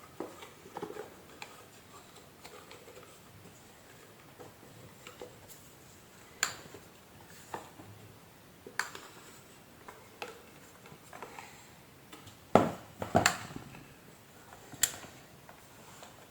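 Scattered clicks, taps and knocks of hard plastic and metal vacuum cleaner parts being handled and fitted together, at irregular intervals. The loudest are two knocks a little past the middle and a sharp click soon after.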